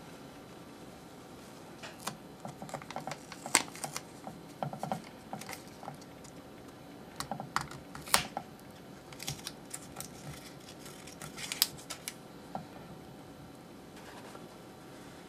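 Light, irregular clicks and taps of hands handling a paper towel and a strip of tape against nested stainless steel bowls and a plastic strip. They start about two seconds in and stop near the end, with a few sharper clicks among them.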